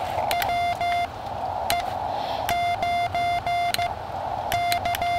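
Morse code (CW) sidetone from a QCX Mini transceiver, one steady mid-pitched beep keyed by paddles into several groups of short and long elements, over the receiver's narrow band of hiss.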